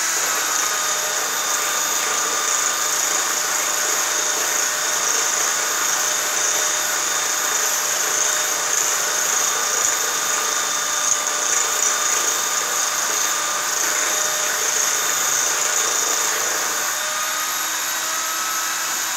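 Motor-driven spindle of a homemade metal-forming machine running steadily, with a steady whine and a high hiss, while a copper leaf blank is worked against its forming wheel. Near the end the whine rises slightly in pitch and the lower rumble drops away as the work comes off the wheel.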